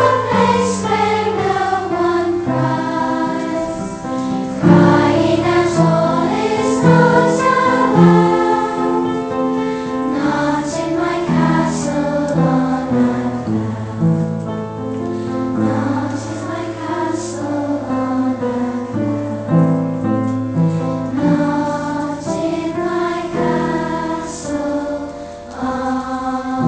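Choir singing in several parts, with held notes changing together from chord to chord.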